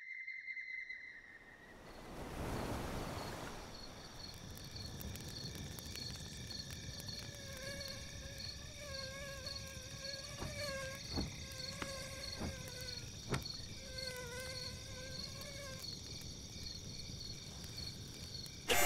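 Night-time ambience of crickets chirping steadily, with a campfire crackling and giving a few sharp pops in the middle stretch. A wavering, hum-like tone comes and goes over the middle of the stretch.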